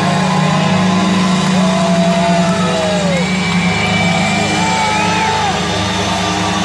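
Large concert crowd cheering and applauding at the end of a song, with several long whoops and yells rising above the din, over a low steady hum.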